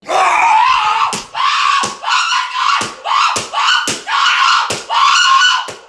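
A person screaming over and over, high-pitched, about eight screams in quick succession.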